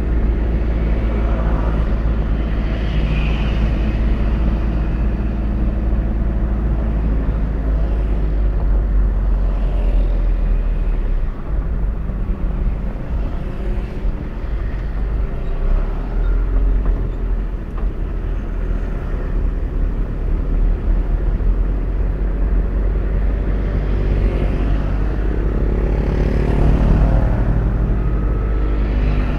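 Car driving on a road, heard from inside the cabin: a steady low engine and road rumble. Near the end a motorcycle engine running close by adds a higher note.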